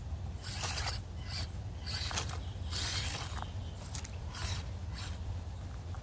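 Axial SCX24 Deadbolt 1/24-scale RC crawler's small electric motor and gears whirring in short bursts as it is throttled over rocks, with its tyres scraping on stone.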